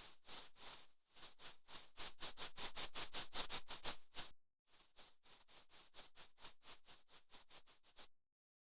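Synthesized brush-stroke sound effect from a Krita drawing plugin: a scratchy hiss pulsing about five times a second. It comes in three runs broken by brief dead silences, is loudest in the middle run, and cuts off near the end.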